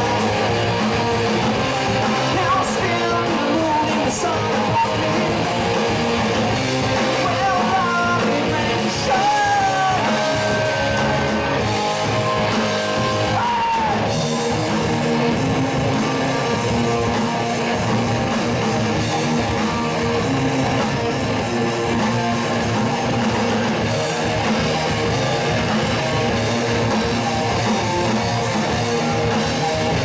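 A live rock band playing: electric guitars, electric bass and a drum kit, with a man singing through the first half.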